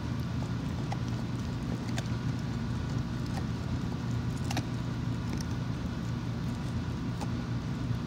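A pit bull gnawing a bully stick, with a few irregular clicks and crunches from her teeth over a steady low hum.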